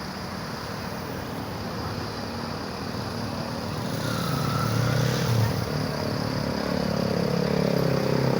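Road traffic: a motor vehicle's engine growing steadily louder as it approaches, its low engine note rising toward the end.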